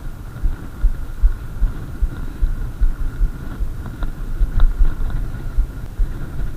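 Wind buffeting the microphone of a camera riding on a moving mountain bike, in irregular low thumps and rumble, with a thin steady whine above it. A few light clicks come about four seconds in.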